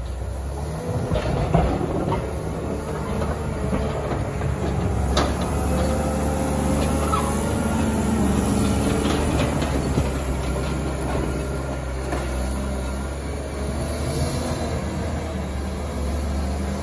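Caterpillar 930K wheel loader's diesel engine running steadily under load as it pushes a snow bank, with a few sharp knocks along the way.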